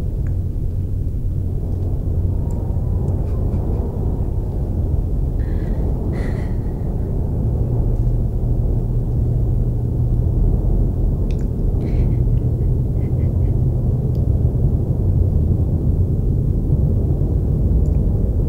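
Loud, steady low rumbling drone. It carries a few faint, short higher sounds about six seconds in and again around twelve seconds.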